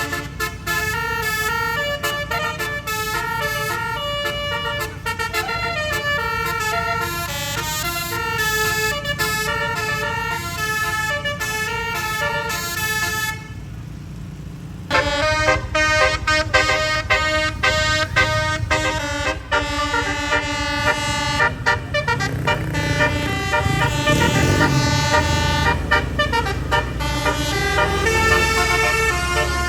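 Indonesian telolet bus horn, a 12-note, 24-trumpet stereo set, playing a melody of held notes that step up and down in pitch, with vehicle rumble underneath. Around halfway it drops away for about a second and a half, then comes back louder.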